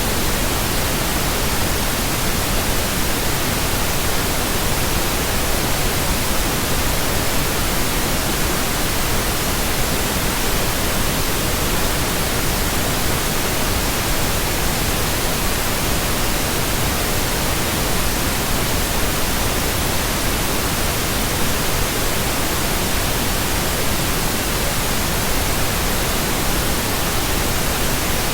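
Steady electronically generated pink noise: an even, unchanging hiss.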